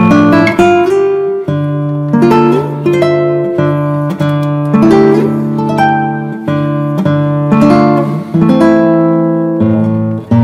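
Background music: an acoustic guitar playing plucked notes one after another.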